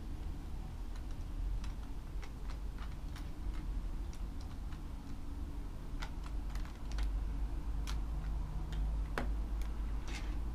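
Plastic Lego bricks clicking and snapping as small pieces are handled and pressed together: irregular light clicks, a dozen or more, scattered throughout.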